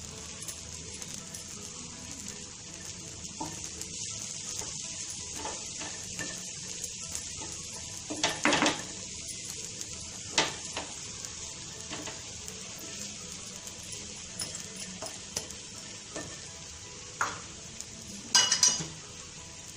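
Dosa sizzling on a hot tawa while a spatula spreads red chilli paste over it, with a few sharp scrapes and taps of the spatula against the pan, the loudest about eight seconds in and near the end.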